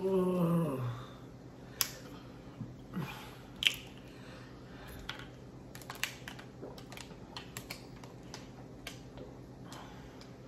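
Thin plastic water bottles crackling and clicking as they are gripped and gulped from, a few scattered sharp clicks, then many small ones in the second half. A voice trails off in the first second.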